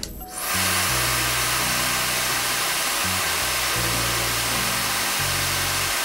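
Laifen Swift high-speed hair dryer switched on a moment in and running steadily, a constant rushing hiss of air.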